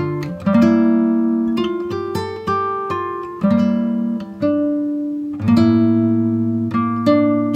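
Background music: plucked acoustic guitar picking notes and changing chords about once a second, each note ringing and fading.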